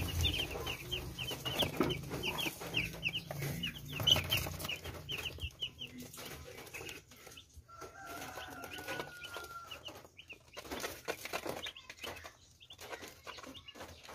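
A brood of young broiler chicks peeping: many short, high, falling chirps, several a second, busy in the first half and thinning out after about six seconds.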